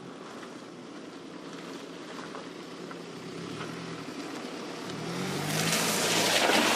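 Car driving: a low engine hum that rises and falls slightly in pitch, then a loud rushing noise of wind and tyres swelling up about five seconds in.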